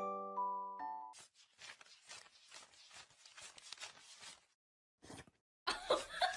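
Mallet-instrument music dies away in the first second, then faint scratching and rustling. A short gap follows, and near the end a loud run of rapid, repeated animal calls begins, several a second.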